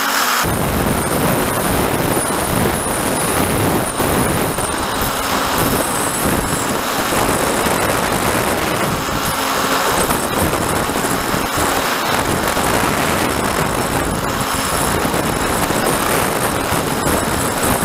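Steady rushing noise of a remote-controlled aircraft in low flight: motor and propeller whine mixed with wind over its onboard camera microphone. It cuts in abruptly about half a second in.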